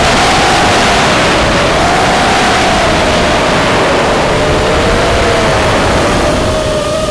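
Motors of a 220 mm FPV racing quadcopter (Cobra CP2205 2300 kV brushless, 5-inch props), recorded by its onboard camera: a loud motor whine that wavers up and down in pitch with the throttle, over a heavy rush of prop wash and wind noise. About six seconds in it gets a little quieter and the whine splits into two close pitches.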